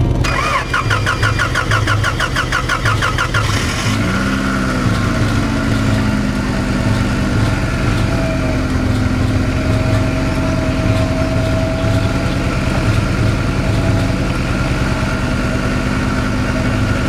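Honda Accord engine cranked by its starter, boosted by a portable jump-starter pack, at about five or six turns a second for some three seconds, then catching about four seconds in and settling into a steady idle: a first start after sitting out the winter under snow.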